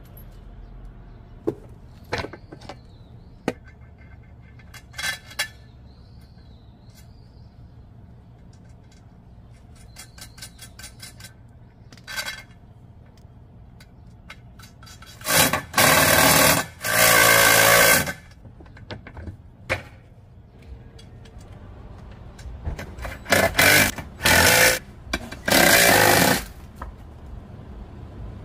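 Power drill or driver running in short bursts, in two clusters several seconds apart, with scattered clicks and knocks of handling tools and parts between them.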